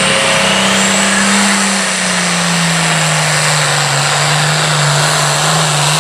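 Pro farm class pulling tractor's diesel engine running hard and loud, its pitch steady and dipping slightly about two seconds in.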